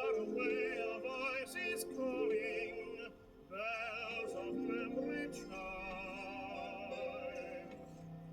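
An operatic vocal with a wide vibrato over accompaniment, playing from a vinyl record on a vintage record player. The singing breaks off briefly about three seconds in.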